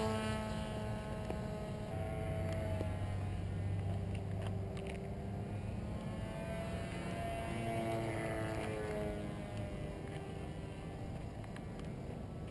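Electric RC flying wing's brushless motor and 9x4 propeller buzzing in flight, its pitch sliding up and down several times.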